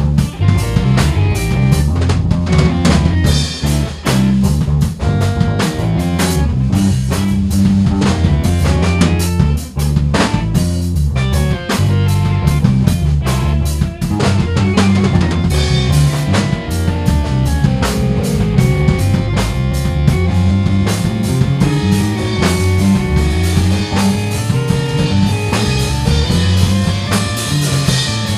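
Instrumental rock band music: a busy drum kit, with snare rimshots and bass drum, plays over electric bass and keyboards.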